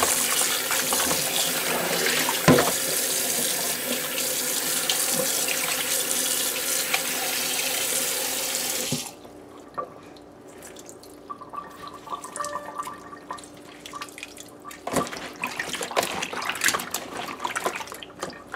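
Kitchen tap running into a plastic bowl in a stainless steel sink while hands rinse small fish under the stream. The rushing water cuts off about halfway through, leaving quieter small splashes and wet handling sounds as the fish are worked in the water.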